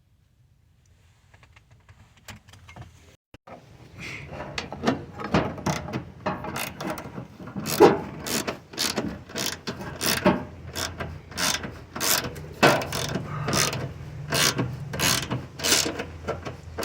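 Ratchet wrench clicking in repeated strokes, about two a second, as bolts are worked loose, starting about four seconds in over a low steady hum.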